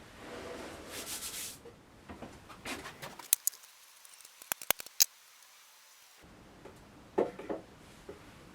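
Handling noise from stripping down an old bandsaw: shuffling and scraping, then a quick run of sharp metallic clicks between about three and five seconds in, and a couple of knocks near the end.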